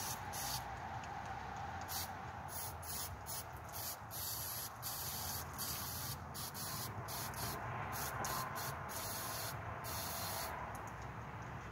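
Aerosol can of brake cleaner hissing as it is sprayed in repeated squirts into a lawnmower carburetor to flush it clean, stopping about ten and a half seconds in.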